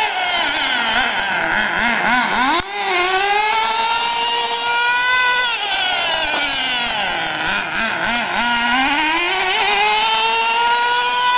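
Small nitro-fuel engine of a Traxxas Nitro Sport RC truck running at high revs, its pitch climbing and falling as the truck speeds up and slows down. Twice the revs drop low and waver before climbing again: once about two seconds in, and again past the middle.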